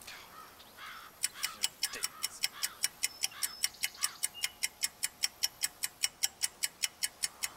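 Clock ticking rapidly, about five ticks a second, starting about a second in.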